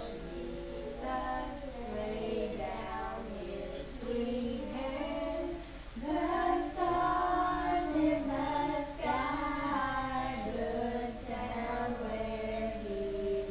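A small group of young children singing a song together; the singing gets louder about six seconds in.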